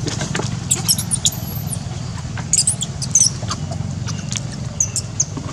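High-pitched animal squeaks and chirps, short and in quick clusters, some gliding in pitch, over a low steady rumble.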